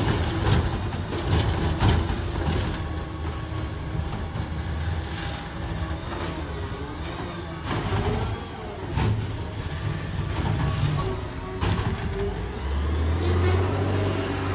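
CCC LET2 McNeilus ZR side-loader garbage truck running, with several sharp clanks while it works the street. A louder low engine note comes in near the end.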